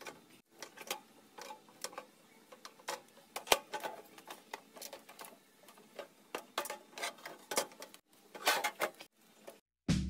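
Sheet-metal casing of a scrap microwave oven knocking and clattering on a tile floor as it is tipped and turned over by hand: scattered light knocks and taps, the sharpest about three and a half seconds in. Music starts just before the end.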